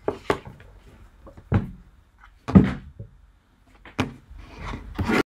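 A few knocks and thumps with some rustling, made by a person moving about close to a laptop microphone and sitting down in front of it. The loudest thump comes about two and a half seconds in.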